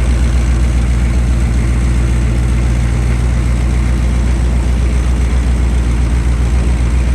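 Duramax LBZ 6.6-litre V8 turbodiesel idling steadily.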